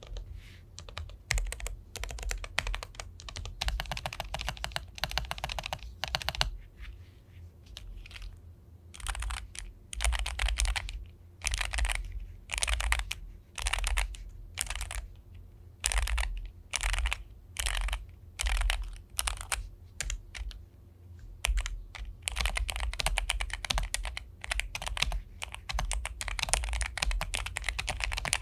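Typing on an Epomaker Luma 84 low-profile mechanical keyboard. Fast runs of key clicks give way to slower, separate key presses through the middle, then fast typing picks up again near the end.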